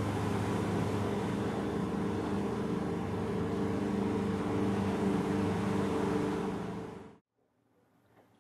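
Small fishing boat's engine running steadily at cruising speed under a steady hiss of wind and water. The sound cuts off suddenly about seven seconds in, leaving only a faint quiet background.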